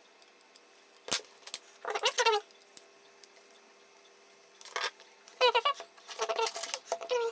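Clicks and light knocks from a small circuit board and its wires being handled on a rubber work mat, with several short, high, wavering squeaks.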